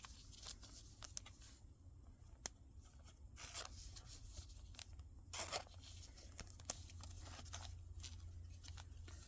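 Faint handling of trading cards and packaging: soft rustles and scattered light clicks, with a few slightly louder rustles about halfway through.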